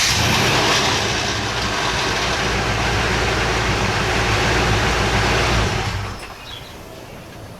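Chevy K5 Blazer engine running steadily just after a hot restart at operating temperature, then switched off about six seconds in. This is a hot-start test, and the truck now starting every time points to the ignition control module as the cause of its hot crank-no-start.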